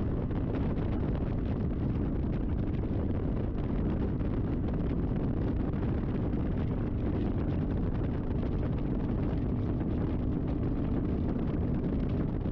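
Motorcycle riding at a steady speed: an even engine drone under heavy wind rumble on the microphone.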